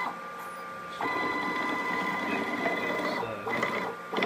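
Stepper motors on a small CNC milling machine running as an axis is moved: a steady whine for about two seconds, then a shorter burst and a click near the end.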